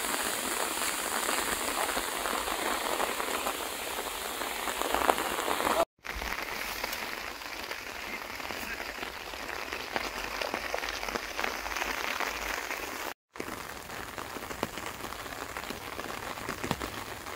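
Steady rain falling on leaves and ground, an even patter that cuts out abruptly twice for a moment.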